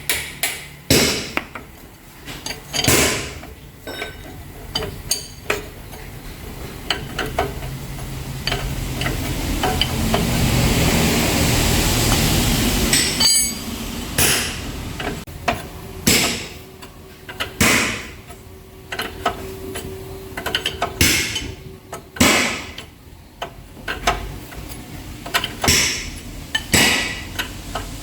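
Hammer striking metal in irregular blows, each with a short ring. A swell of rushing noise rises and fades in the middle.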